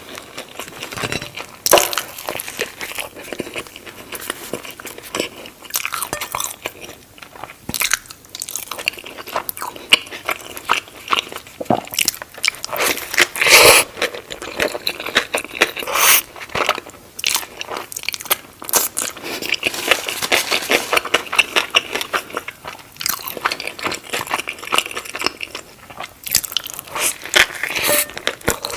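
Close-miked eating: crunchy bites and chewing, a dense run of irregular crackles and crunches.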